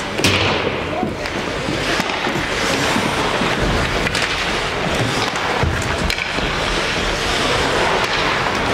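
Ice hockey play on a rink: skates scraping the ice with sharp clicks of sticks and puck, one strong click just after the start, and voices calling out.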